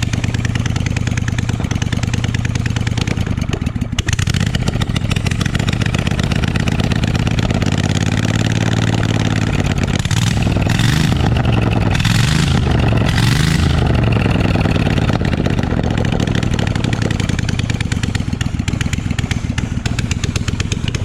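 Kohler CH18 air-cooled V-twin small engine running steadily after repair, revved up and down three times a little past the middle.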